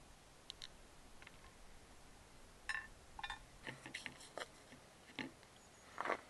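Light clinks and taps of a small spoon against ceramic bowls and a plate as a topping is spooned out, scattered and irregular. The loudest clinks come a little under three seconds in and just before the end.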